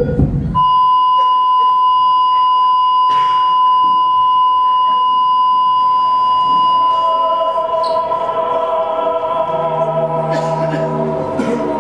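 A steady, unbroken electronic beep tone of a heart monitor flatlining, the signal that the patient's heart has stopped, starting under a second in. About six seconds in, music rises in beneath it.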